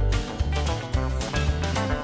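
Background music: an instrumental track with a steady beat and a bass line moving about twice a second.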